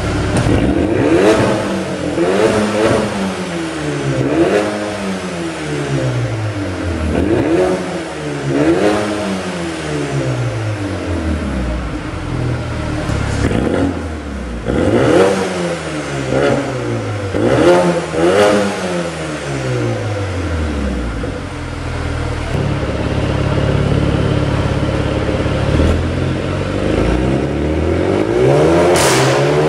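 Mercedes-AMG A35's 2.0-litre turbocharged four-cylinder revved repeatedly through a full Akrapovic exhaust with the particulate filter (OPF/GPF) deleted. It gives a string of quick rev blips, each rising and falling in pitch, then holds a steady note from about two-thirds in and climbs again near the end.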